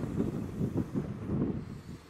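Mark 3 coaches of an HST train running past at close range: a low rumble of wheels on rail with uneven knocks, and wind on the microphone.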